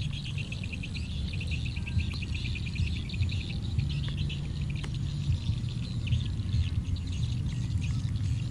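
Rapid, high-pitched chirping trills repeating in quick runs over a steady low hum.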